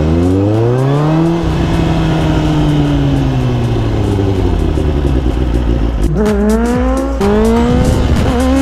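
Kawasaki Ninja sport bike engine heard from the rider's seat, revving up hard in the first second and then holding a high, slowly falling note. From about six seconds in it climbs and drops in pitch three times in quick succession as the rider shifts up through the gears.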